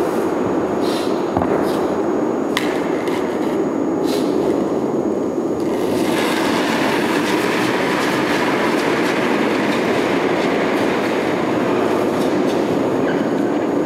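A steady low rumble throughout, with a few sharp taps in the first half. About six seconds in, a brushing hiss joins it as a granite curling stone is delivered and swept down the ice with curling brooms.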